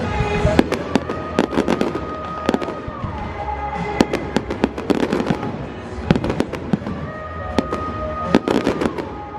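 Fireworks going off in rapid, irregular bangs and crackles over music with long held notes.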